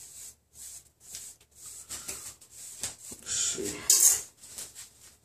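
Short, soft swishing strokes through close-cropped waved hair, about two a second. A louder rustle comes about three and a half seconds in.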